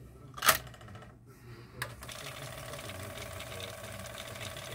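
Nakamichi LX-3 cassette deck: the cassette door clacks shut, then about two seconds in a transport key clicks and the tape fast-winds with a steady mechanical whir.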